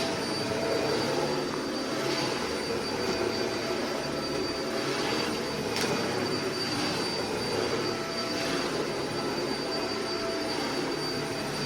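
Dyson vacuum cleaner running steadily while being pushed over carpet: a steady rushing motor noise with a thin high whine.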